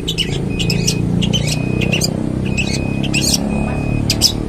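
Long-tailed shrike (cendet) singing: a rapid string of short, high notes, about two a second, over a steady low rumble.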